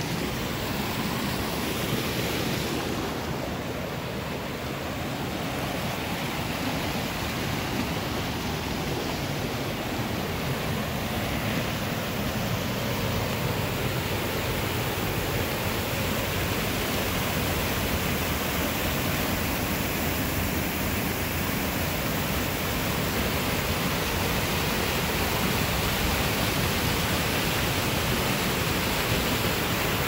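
Small waterfall pouring over sandstone ledges, a steady rush of falling and splashing water.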